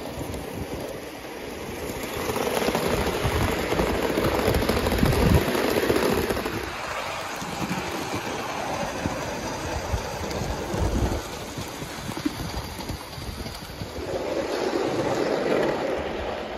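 Gauge 1 live-steam model train running past on garden track: wheels rumbling and clicking over the rails, swelling louder twice as the train goes by close.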